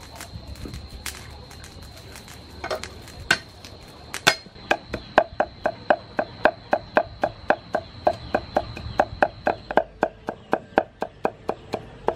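Cleaver chopping garlic on a thick round wooden chopping board. A few scattered knocks come first, then from about four seconds in a steady rhythm of about three to four chops a second.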